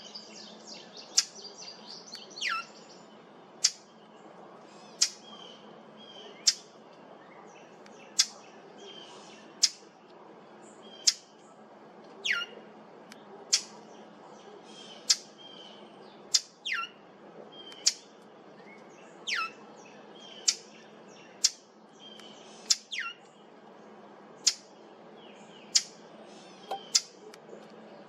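Brown thrasher repeating a short, sharp call that sweeps steeply down in pitch, about once every second and a half, with softer chirps in between.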